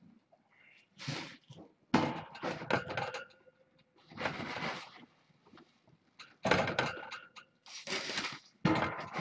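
Kittens playing close to the microphone: a string of short rustling knocks and clicks, about six bouts in all.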